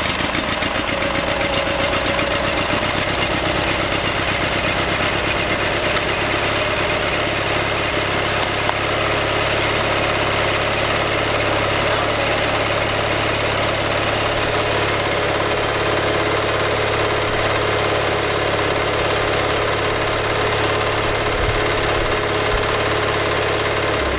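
Kohler KT17 air-cooled opposed-twin engine running steadily on a newly fitted carburetor, with a little tappet noise that the owner suspects may mean it is low on oil.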